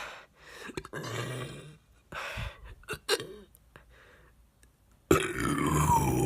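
A woman burping: a few short, softer sounds first, then a long, loud burp starting about five seconds in, its pitch dipping and then rising again.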